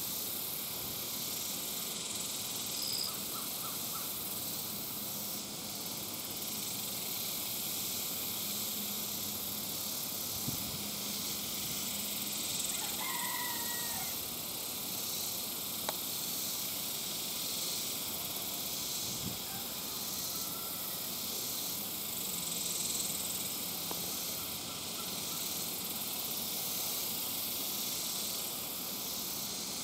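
Steady high-pitched hiss of an insect chorus, pulsing faintly about once a second, with a few faint distant bird chirps and short trills.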